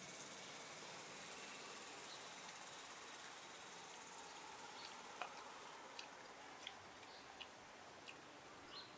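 Faint outdoor ambience: a steady high hiss, with a few short, light ticks in the second half.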